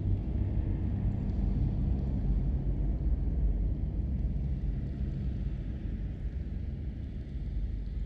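Cave atmosphere: a steady low rumble of cave air, easing off slightly in the second half, with no distinct drips standing out.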